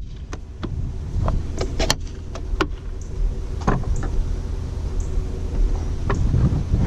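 A car running, with a steady low rumble from inside the cabin and scattered light clicks and knocks.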